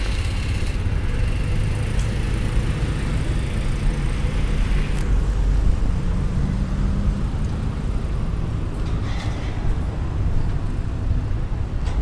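Steady low rumble of car engines and traffic in a parking lot.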